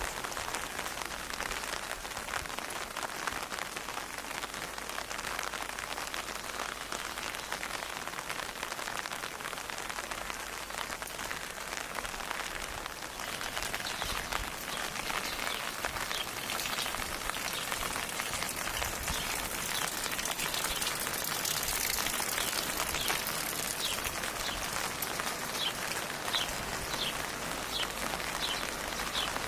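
Steady rain falling, an even dense patter that grows a little louder about halfway through. From about halfway, a series of short, high, falling chirps repeats over the rain.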